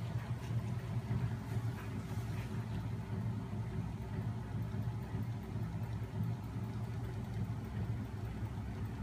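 Homemade magnet engine running: a small electric motor turning its heavy flywheels and rollers, with a steady low hum.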